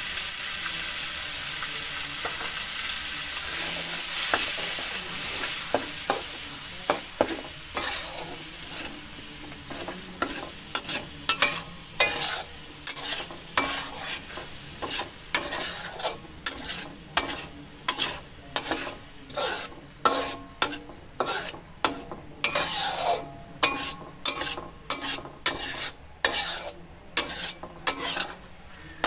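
Ground spice paste sizzling in hot oil in a metal wok. From about ten seconds in, a metal spatula scrapes and knocks across the wok in regular strokes, one or two a second, while the sizzle fades.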